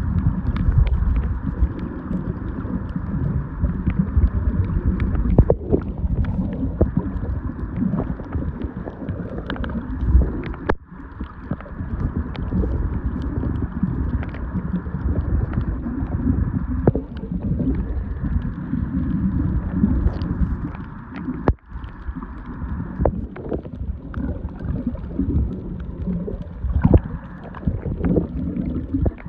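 Underwater sound picked up by a camera below the surface while snorkeling: a steady, muffled low rush of moving water, sprinkled with many sharp clicks and crackles. The sound drops away briefly twice.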